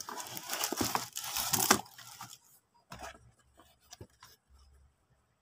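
Cardboard box and plastic packaging rustling and crinkling for about two seconds as the contents are pulled out of the box, then a few light knocks as the pieces are handled and set down.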